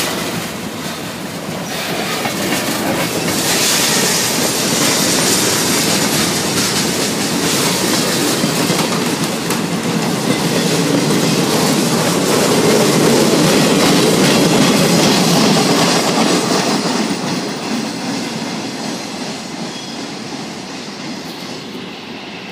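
Freight train cars rolling past, steel wheels clacking over the rail joints. The sound fades over the last few seconds as the tail of the train pulls away.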